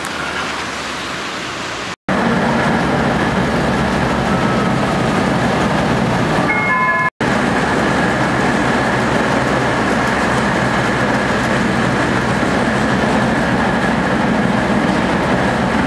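Loud, steady running noise inside a moving city bus or tram, a rumble and hiss with a faint steady whine. It is preceded by a quieter hiss of traffic on a wet street. Two abrupt cuts to silence occur, at about two and seven seconds in, and a few short high beeps come just before the second cut.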